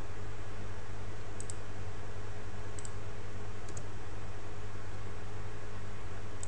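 Four short computer mouse clicks, each a quick double tick, over a steady hum and hiss from the recording setup.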